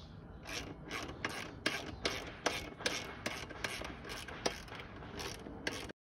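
Ratchet wrench clicking in a steady series, about three clicks a second, as the exhaust mounting bolts are tightened down. The sound cuts off suddenly near the end.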